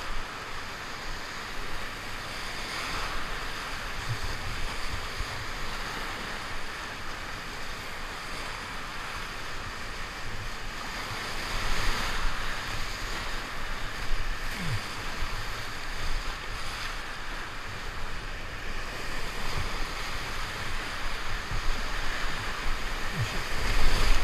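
Rushing whitewater of a river rapid running high, heard from the bow of a solo canoe as it drives through the waves, with water splashing over the boat. It grows louder about halfway through and peaks near the end as a wave breaks over the bow.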